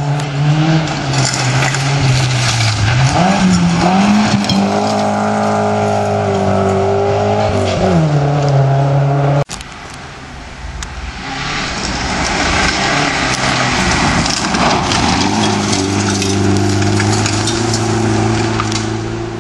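Rally car engines at full throttle on a gravel stage, the pitch falling and rising through gear changes as a car approaches and passes. The sound cuts off abruptly about halfway, and a second car's engine builds up, climbing in pitch as it approaches.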